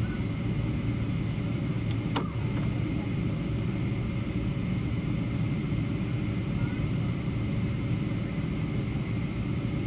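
Steady low rumble of an airliner's cabin as the jet taxis after landing, its engines at idle and the plane rolling over the concrete, with a single click about two seconds in.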